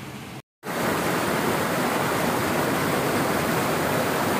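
Water rushing down a narrow rock channel at a small waterfall: a steady rush that comes in suddenly about half a second in, after a brief dropout.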